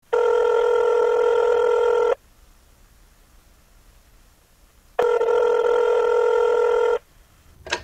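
Telephone ringing twice, each ring a steady tone lasting about two seconds, with about three seconds of quiet between them.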